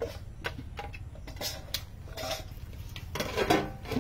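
A metal plate being set on an aluminium cooking pot as a lid: scattered light metallic clinks and taps, with the loudest clatter about three and a half seconds in, over a steady low rumble.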